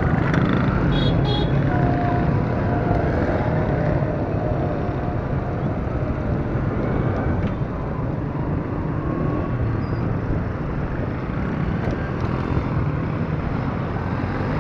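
Motorcycle running steadily while being ridden through city traffic, with other motorcycles and cars around it and short high beeps about a second in.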